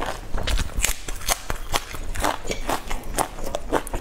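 A person chewing a pan-fried stuffed bun: an irregular run of quick mouth clicks and smacks, several a second.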